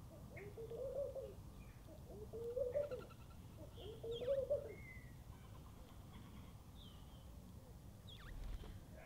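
A dove cooing three times in the first five seconds, each coo a low phrase that rises and falls. Faint short chirps and two quick falling whistles from small birds sound higher up.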